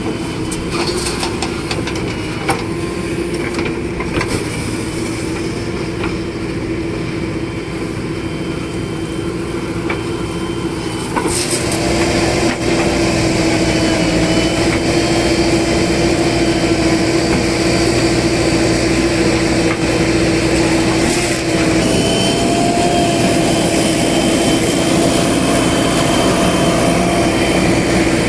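Engines of heavy vehicles (a backhoe loader and trucks) running steadily on a muddy road, with a constant humming tone. The engine sound grows louder about twelve seconds in.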